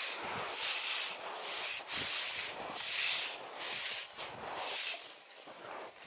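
Skis sliding over snow in steady strides, a hissing swish about once a second, getting quieter near the end.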